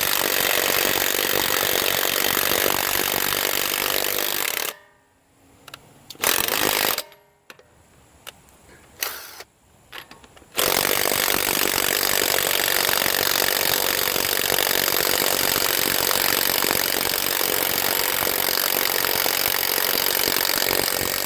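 HANS 1/2-inch cordless impact wrench hammering on a car lug nut. It makes a long run of about four and a half seconds, stops, gives a short burst about six seconds in, then hammers without a break from about halfway through to the end. This is long, sustained hammering on a partly charged battery as it works to break the lug nut loose.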